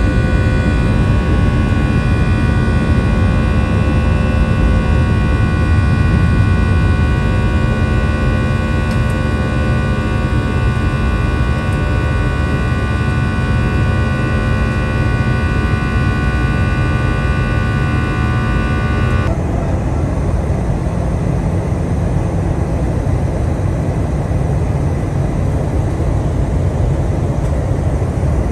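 Airplane cabin noise from a window seat: a steady engine rumble with a cluster of steady whining tones above it. About two-thirds of the way through it cuts abruptly to a smoother, steady rush of air without the whine.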